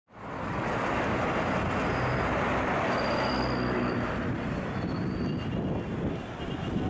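Street traffic: cars and a pickup truck driving past on a city road, a steady wash of engine and tyre noise with a low engine hum swelling as a vehicle passes.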